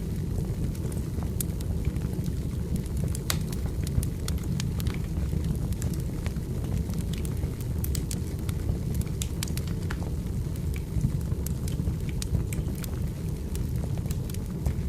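Firewood burning: a steady low rumble from the fire with frequent irregular crackles and pops.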